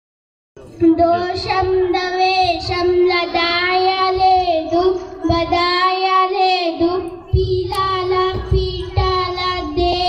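A girl singing solo into a microphone, starting about half a second in and holding long, steady notes phrase after phrase, with a low rumble beneath in the second half.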